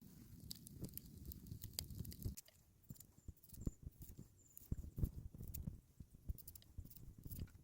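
Scattered light clicks and knocks of handling at a campfire cooking spot, with a low rumble for the first two seconds or so.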